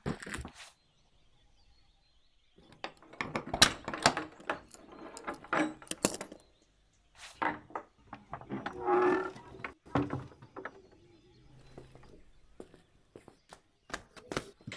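Metal clicks and rattles of a key, lock and chain on an old wooden door, then a long creak about nine seconds in as the door is pushed open, followed by a few scattered knocks.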